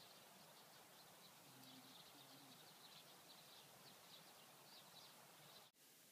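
Near silence: faint open-air ambience with a steady run of short, high chirps, which stops abruptly shortly before the end.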